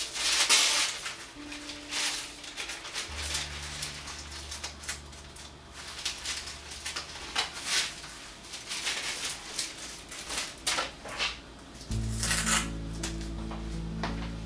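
Crinkling and rustling of thin shiny blue transfer sheets being handled and peeled up off a table, in short irregular bursts, the loudest about half a second in. Gentle background music plays underneath.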